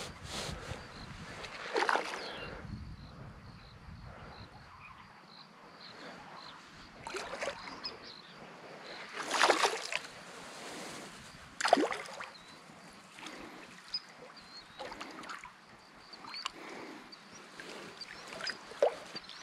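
Several irregular splashes at the water's surface from a hooked fish being played in close to the bank, the loudest about halfway through.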